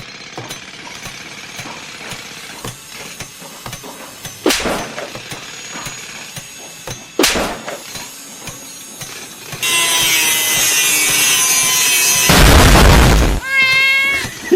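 Construction-site noise: two sharp knocks, then a power tool running for a few seconds from about two-thirds of the way in, a loud crash, and a short pitched call near the end.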